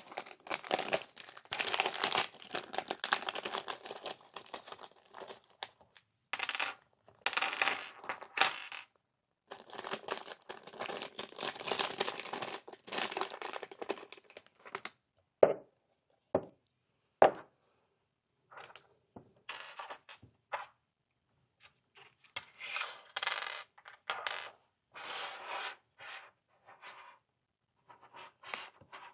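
Small metal tools and parts from a disassembly kit being handled, clinking and rattling in long bursts, with three separate sharp clicks about halfway through.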